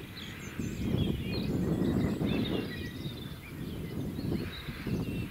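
Small birds chirping and singing in short rising and falling notes, several at once, over an uneven low rumble of wind buffeting the microphone that swells and fades.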